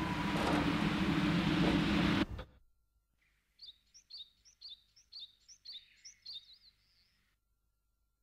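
A loud, steady noise with a low drone cuts off abruptly about two seconds in. After a moment of quiet, a small bird chirps about eight times in quick succession, high-pitched, roughly two chirps a second.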